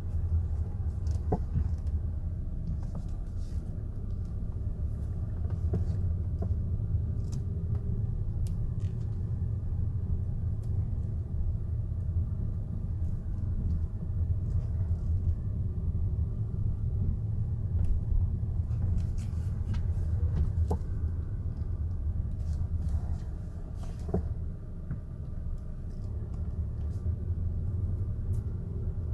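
Third-generation Skoda Superb driving, with a steady low road rumble and scattered short knocks: a knock in the suspension.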